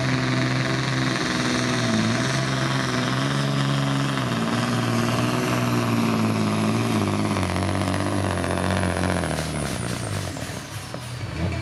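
Volvo FH pulling truck's diesel engine running flat out while dragging a weight sled, with a high whistle above it. The pitch dips briefly twice, then sinks steadily in the second half and dies down near the end as the sled's load brings the truck to a halt.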